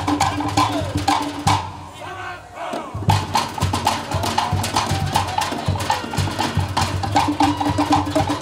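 Cook Islands drum ensemble playing a fast, driving rhythm on wooden slit log drums (pātē) over a deep bass drum. The drumming breaks off about one and a half seconds in and comes back in a second and a half later.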